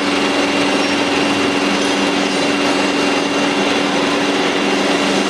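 KIMHOO CNC polygon turning machine cutting flats on a 45 steel bar, with two tools in its belt-driven spindle taking off about 1 millimetre. It runs with a steady hum and a thin high whine over a dense cutting noise.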